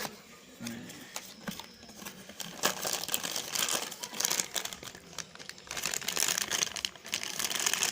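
Packaging crinkling and rustling as it is handled while the mixer is unboxed, in quick, irregular crackles that grow busier about a third of the way in.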